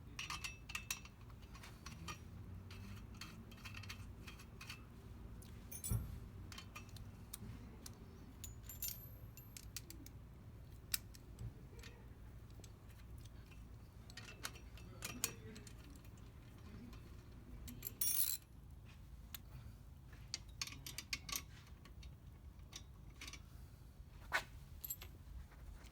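Scattered metallic clicks and clinks of tools and exhaust hardware being handled while a slip-on muffler is fitted to a motorcycle, over a low steady hum. A brief clatter about 18 seconds in is the loudest.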